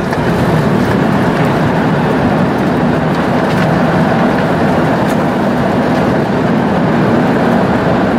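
Loud, steady roar of an Airbus A330's engines and rushing air heard from the cabin as the airliner decelerates on the runway just after touchdown.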